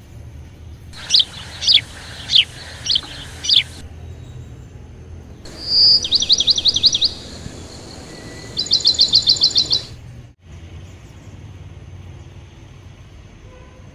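Birds chirping: five separate whistled notes, each falling in pitch, then a rapid trill and a second fast run of about a dozen short notes, over a faint low hum.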